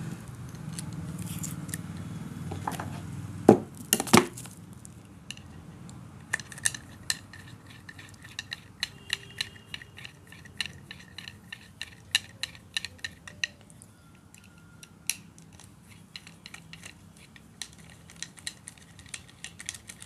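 Metal-on-metal clinking as a screwdriver drives the two body screws into a Hyundai Xcent electric power steering motor's housing. Two sharp knocks come about three and a half and four seconds in, then a long run of light, irregular metallic clicks.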